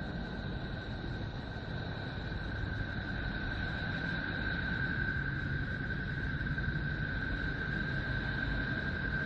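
A 'planet sound' from space, spacecraft data converted into audio. It is an eerie, steady drone: a held high tone over a low rumble, growing slightly louder partway through.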